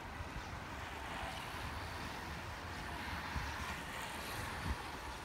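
Wind rumbling on the microphone over a steady hiss of surf breaking on the rocky shore.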